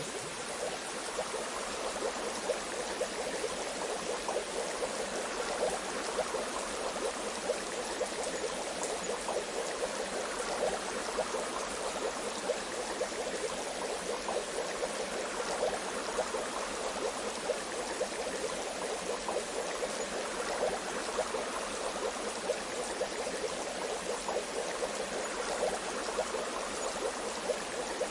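Bath water bubbling steadily: a dense, continuous run of small gurgles and bubble pops over an even watery hiss.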